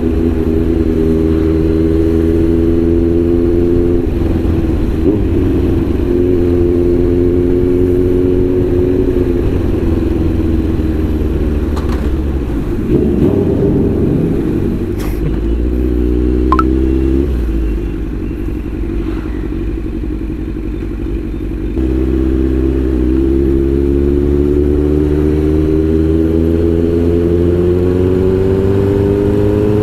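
Kawasaki Z900's inline-four engine heard from the saddle while riding. Its pitch climbs in runs and breaks off at gear changes, drops to a lower, quieter note for a few seconds past the middle, then climbs steadily again near the end.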